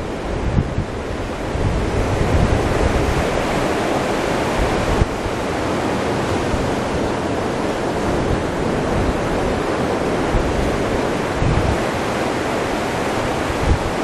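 Surf breaking and washing up a sandy beach, a steady rush of waves that swells a little about two seconds in. Wind buffets the unshielded microphone in uneven low rumbles.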